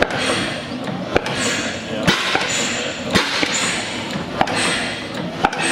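Schleicher, Schumm & Co. stationary engine running slowly, with a sharp beat about once a second over a steady mechanical clatter.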